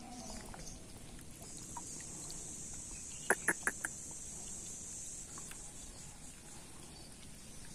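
A steady high-pitched insect buzz for a few seconds, and just past the middle a quick run of four short, sharp animal calls, the loudest sounds here.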